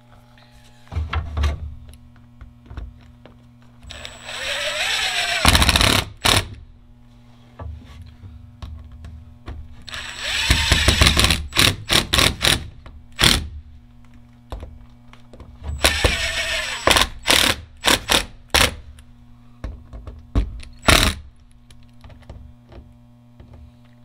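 Cordless impact driver driving screws into a trailer wall to fasten a shore power inlet. It makes three runs of a second or two each, the first rising in pitch as it spins up, and each is followed by a few sharp clicks and knocks.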